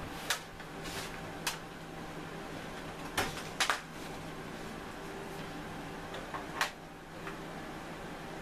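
Scattered sharp knocks and clicks of a computer keyboard and its USB cord being handled and moved about to plug it in, the loudest a close pair about three seconds in, over a steady low hum.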